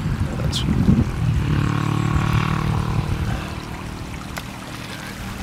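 Wind buffeting the microphone, then a steady engine hum that comes in about a second and a half in and fades away over the next two seconds.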